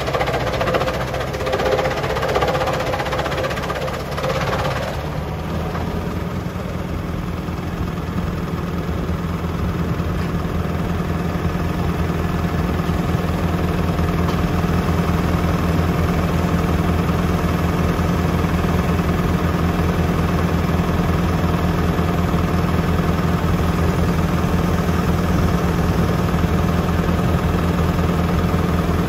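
A tractor engine running steadily, with extra mechanical noise over it for the first five seconds that stops about five seconds in.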